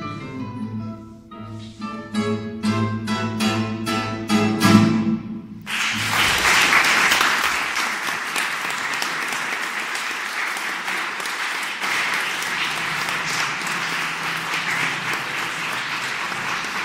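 Three classical nylon-string guitars finish a piece with a quickening run of plucked chords. About six seconds in, the audience starts applauding.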